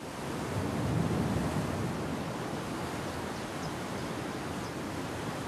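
Sea surf washing onto a rocky, pebbly shore: a steady rush of waves, a little louder about a second in.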